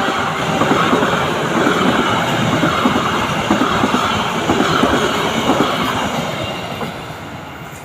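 Train passing close by: wheels clattering and rumbling over the rails, the sound fading away near the end.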